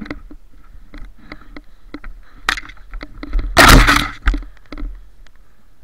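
Footsteps crunching through snow-covered brush, with scattered snaps and cracks of twigs and branches and one louder, longer crunching rustle about three and a half seconds in.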